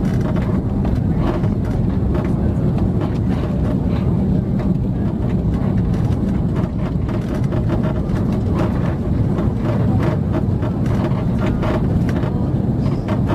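Airliner cabin noise: a steady, loud rumble of engines and airflow, with frequent short rattles and knocks throughout.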